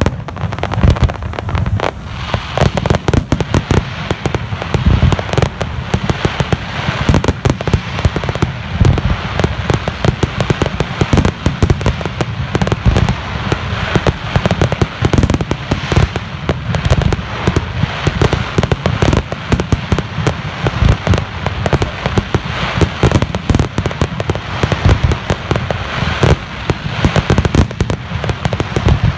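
Aerial fireworks display: a dense, continuous barrage of shell bursts, many sharp bangs and pops a second with heavy low booms and no let-up.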